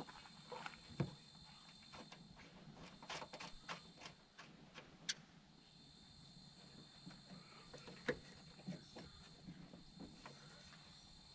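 Faint scattered clicks and taps of hands working a new liftgate gas strut onto its upper mount on a Subaru Forester.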